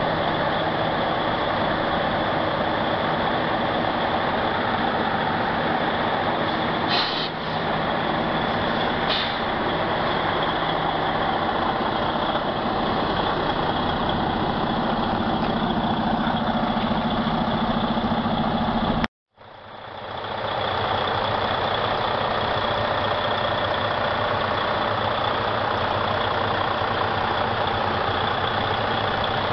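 Diesel engine of a Freightliner 122SD truck tractor idling steadily, with two brief high-pitched accents about seven and nine seconds in. The sound drops out for a moment a little past the middle, then the idle resumes.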